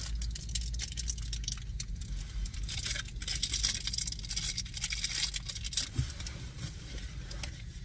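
Plastic food packaging rustling and crinkling as a wrapped mochi is handled, over a low steady hum, with a soft knock about six seconds in.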